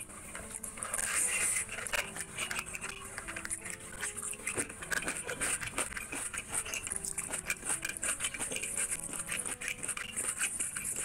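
Close-miked eating sounds: rapid wet smacking and squelching as a hand squeezes cooked rice into thick chicken curry gravy and the eater chews with open-mouthed smacks. Quiet background music runs underneath.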